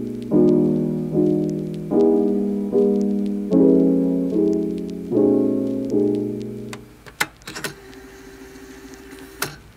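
Piano music: a chord struck roughly every second, each one fading, until the playing stops about seven seconds in. A few sharp clicks follow near the end.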